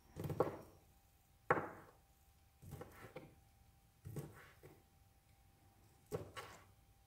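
Kitchen knife dicing sausage on a cutting board: irregular knocks of the blade striking the board, single or in quick pairs, with short pauses between them.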